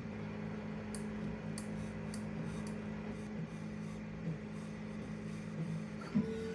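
Stepper motor humming steadily with a few fixed low tones, making what is called a weird sound, with faint ticks early and a short knock near the end.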